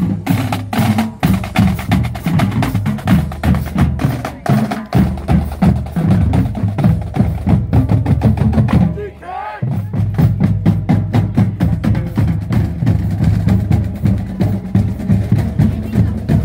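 Music driven by fast, heavy drumming with a strong bass beat, which drops out briefly about nine seconds in.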